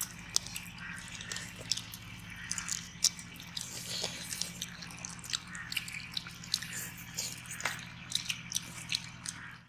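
Close-up eating sounds: grilled tandoori chicken being torn apart by hand and chewed, with many irregular small clicks, smacks and wet squishes over a steady low hum.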